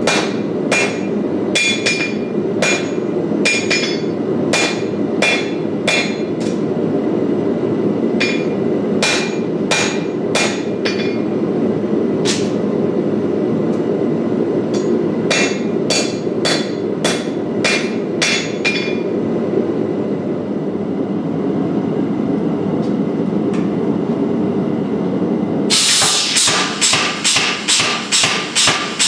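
Blacksmith's hammer striking steel on an anvil, each blow ringing, about one and a half blows a second in runs with pauses between, over a steady low rushing noise. Near the end the rushing stops and a faster, brighter run of regular beats takes over.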